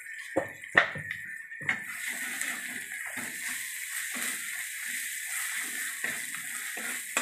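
A metal spatula knocks twice on a metal kadai, then scrapes and stirs spices through hot oil, which sizzles steadily from about two seconds in.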